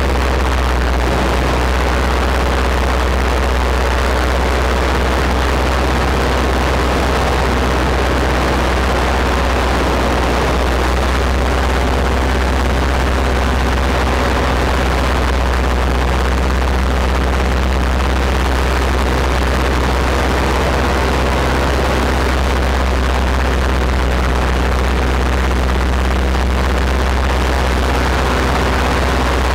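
Light aircraft engine running steadily in flight, heard on board, with a constant low hum under wind rush on the microphone.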